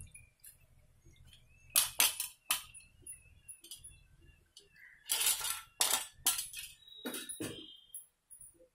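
Steel slotted skimmer clinking against a steel frying pan and bowl as the last batch of fried nimki is lifted out of the oil and tipped out, the crisp pieces clattering. There are a few quick clinks about two seconds in and a longer run of clinks in the second half.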